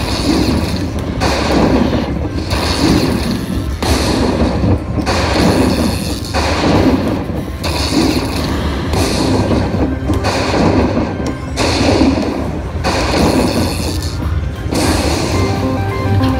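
Aristocrat Dollar Storm slot machine's bonus-tally sound effects: a thunder-like boom about every 1.3 seconds, one for each heart prize struck by lightning and added to the win meter, over the game's music.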